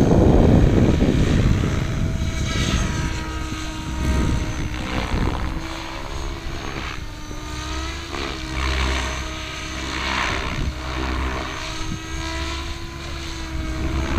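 MSH Protos Max V2 electric RC helicopter flying aerobatics. Its motor and rotor whine glides up and down in pitch, with repeated swells of rotor-blade noise as it manoeuvres.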